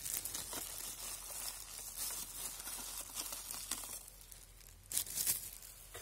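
Rustling, crinkling handling noise around a Roomba e5 robot vacuum, with a brief louder crackle about five seconds in.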